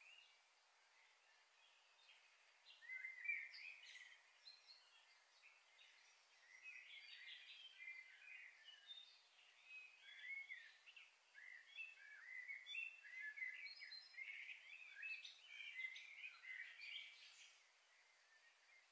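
Faint chirping of small birds: many short, high calls, a few about three seconds in, then in quick runs from about six to seventeen seconds in.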